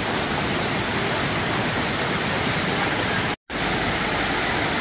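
Steady rush of water spilling down the terraced cascades of Dunn's River Falls. The sound drops out completely for a split second a little over three seconds in.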